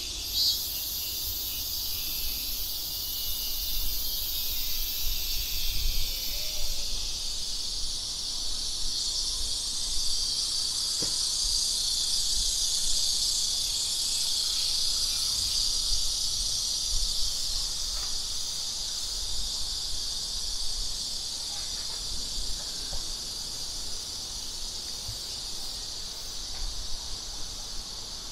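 Steady chorus of summer insects: a continuous high buzzing that swells and fades slightly, with a second, even higher-pitched insect sound over it that stops about six seconds in.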